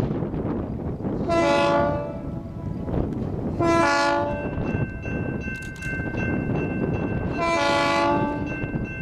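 Diesel locomotive air horn sounding three short blasts of several notes, over a steady low rumble. A steady high tone comes in after the second blast.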